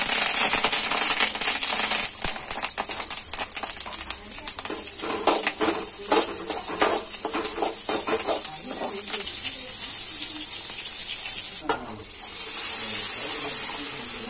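Curry leaves sizzling sharply as they hit hot oil in an aluminium kadai, then sliced small onions frying while a metal slotted spatula scrapes and clinks against the pan. Near the end the sizzle turns into a louder, steady hiss as goat blood is poured into the hot pan.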